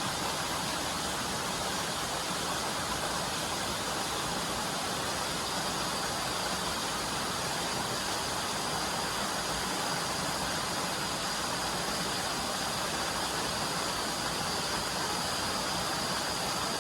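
Steady rush of flowing water, an even noise with no breaks, with a faint high steady tone above it.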